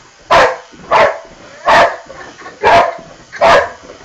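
Boxer dog barking over and over, about five loud barks at an even pace of roughly one every three-quarters of a second.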